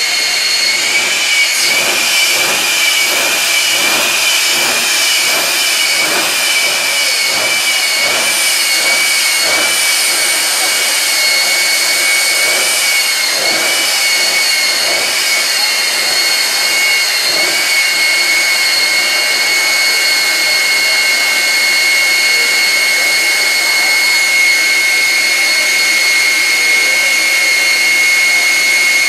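Jet truck's jet engine running at the starting line with a loud, steady high-pitched whine. Through the first half a ragged, uneven pulsing sits under the whine; after that the whine holds steady.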